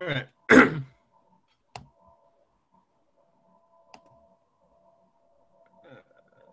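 Two short bursts of a person's voice in the first second, the loudest sounds, then single sharp clicks a couple of seconds apart over a faint steady tone.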